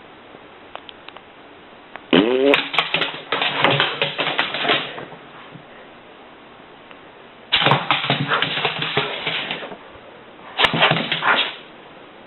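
A dog vocalizing in three rough bouts, each two to three seconds long and each opening with a rising cry. The first starts about two seconds in, the second just past the middle and the third near the end.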